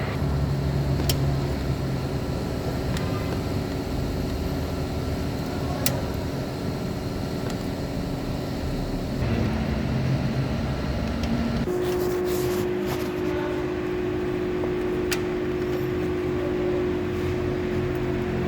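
A vehicle engine running steadily, with a few sharp clicks of hand tools at work on an ignition coil's bolt. A steady tone joins about twelve seconds in.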